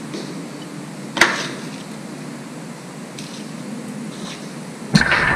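A steel spoon clinks sharply against a bowl once, about a second in. Near the end comes a louder cluster of knocks as spoons and small bowls are handled on the counter.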